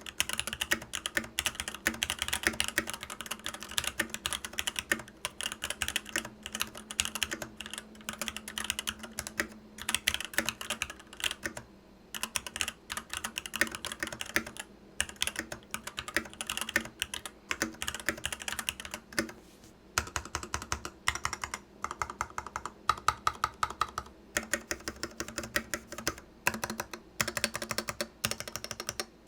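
Typing on a Varmilo Sea Melody keyboard with EC V2 Daisy switches, sitting straight on the desk with no desk mat: continuous runs of key clacks, with a short lull about twelve seconds in.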